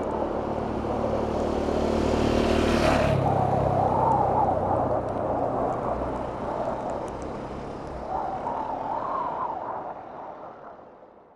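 A motorcycle engine passing by: it builds to its loudest about three seconds in, then recedes and fades out near the end.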